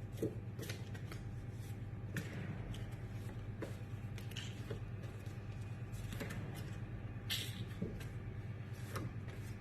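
Phonics flashcards being flipped through by hand: soft, faint taps and rustles at irregular intervals, every second or so, over a faint steady low hum.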